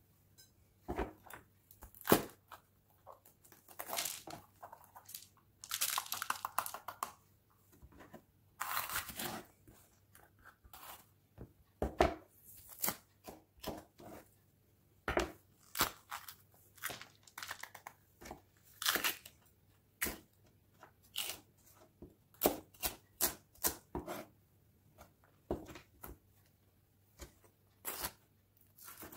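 Chef's knife dicing sweet peppers on a plastic cutting board: irregular sharp taps of the blade against the board, in quick runs and single strokes. In the first ten seconds there are also a few longer noisy handling sounds as the vegetables are moved about.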